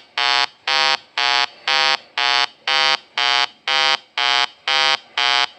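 Loud buzzing electronic alarm beeping on and off about twice a second, a harsh, rasping tone, stopping near the end.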